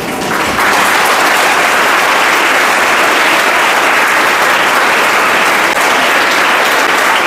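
Audience applauding, swelling in the first half second and then holding steady.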